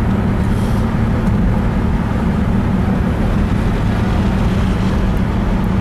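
Steady engine and road noise heard from inside a moving vehicle's cabin, a constant low drone under an even rush of tyre and wind noise.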